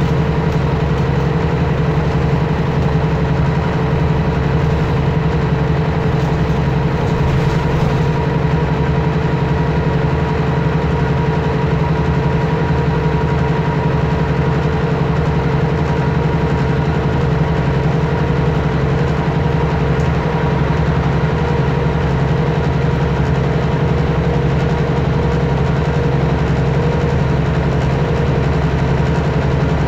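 Engine of a Mercedes-Benz O530G Citaro articulated bus running steadily, heard from inside the bus: an even hum with no rise or fall in pitch.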